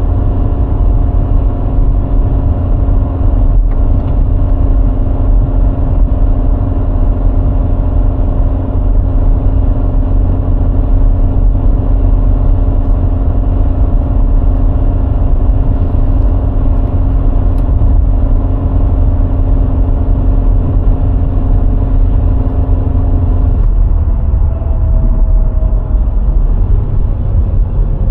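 VW Golf IV 1.6 four-cylinder petrol engine running at a steady cruise under a heavy low rumble of road and wind noise. Near the end the steady engine note breaks off and a lower tone falls away.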